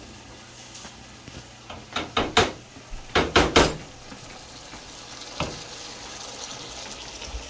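A spoon knocking and scraping against a cooking pot in two quick runs of strokes, then once more. Under it, hot oil sizzles faintly from the dal's chhonk of garlic and cumin.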